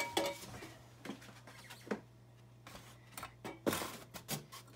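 Scattered light knocks and clicks of metal camp stoves and their tins being handled and set down on a workbench, the loudest about three-quarters of the way through, over a steady low hum.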